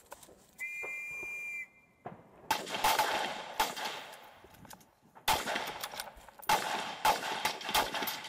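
A range whistle blown once for about a second, signalling the start of a target exposure. About a second later rifle shots begin, in several clusters of sharp cracks, each trailing off in a long echo.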